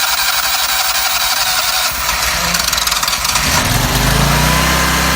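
The first engine of a twin-engine stump grinder being started: a noisy mechanical clatter, then about three and a half seconds in the engine's low running note comes in and settles to a steady run.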